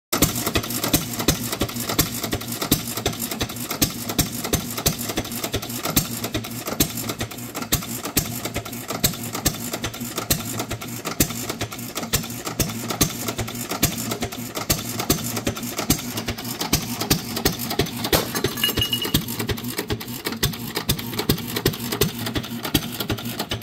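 Cushman Type X stationary engine running, its exhaust firing in sharp beats at a regular pace over a steady mechanical clatter.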